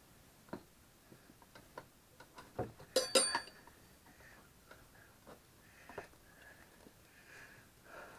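Hand tools on a dirt bike wheel and tire: scattered light clicks and taps, with a cluster of sharp, ringing clinks about three seconds in, then a few faint scrapes.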